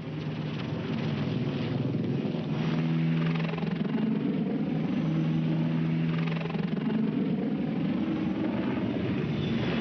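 Attack helicopter flying low, its rotor and turbine noise with a steady deep hum. It swells over the first second, then holds steady.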